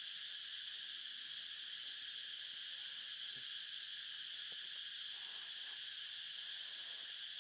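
Steady high-pitched drone of a forest insect chorus, unbroken throughout.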